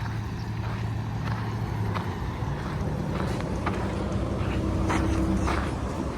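Footsteps walking at a steady pace, over a continuous low hum of vehicle engines and road traffic that swells slightly in the second half.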